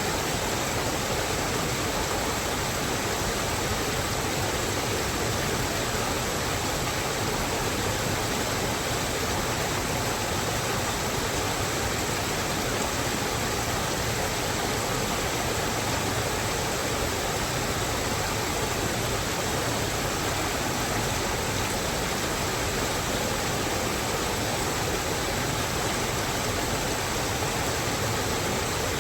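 Steady, unbroken rushing of water, even from start to finish with no separate drops, splashes or other events.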